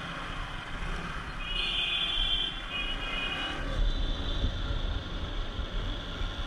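Bajaj Pulsar RS200 single-cylinder engine running at low speed in slow traffic, a steady low rumble under road noise. A high steady tone sounds for about two seconds near the middle.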